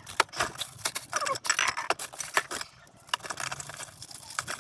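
Rummaging through a box of small plumbing fittings and washers: irregular clicks, rattles and scrapes of small parts knocking together.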